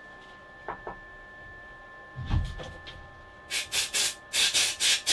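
Compressed-air blow gun blasting chips off freshly milled steel parts in a machine vise: five loud hissing blasts in the last second and a half, the later ones longer. A dull knock comes about two seconds in.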